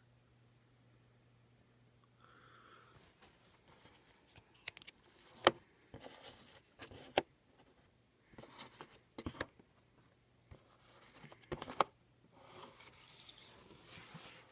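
Paper raffle tickets handled on a tabletop: short spells of rustling and scraping, with a few sharp clicks, the loudest about five and a half seconds in. A faint low hum runs under the first few seconds.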